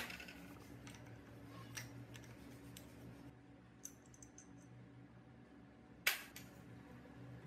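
A few light clicks and one louder sharp knock about six seconds in, over a faint steady hum.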